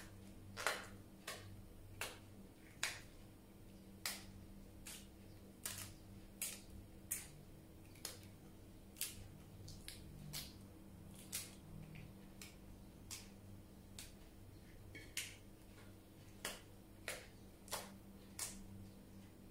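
Crisp lettuce leaves torn apart by hand, each tear giving a short, sharp snap, roughly one a second at an irregular pace.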